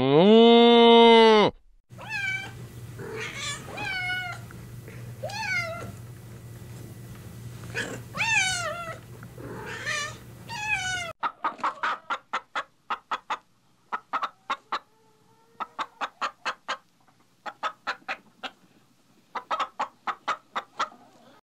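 A cow moos once, a long, loud call that ends about a second and a half in. Then a cat meows again and again, about eight separate meows. From about halfway through, chickens cluck in quick runs of short calls.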